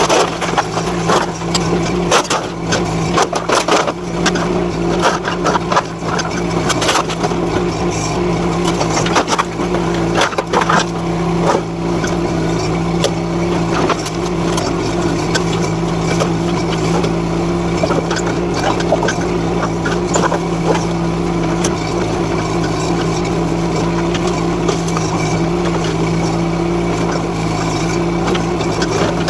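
NT18K mini excavator's engine running at a steady pitch. For about the first twelve seconds frequent knocks and clatters come on top of it as the old shed's metal and wood are pulled apart, then the engine runs on with only occasional knocks.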